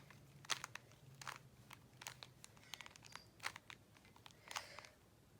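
Plastic Rubik's Cube layers being turned by hand: faint, quick clicks and rattles at an irregular pace.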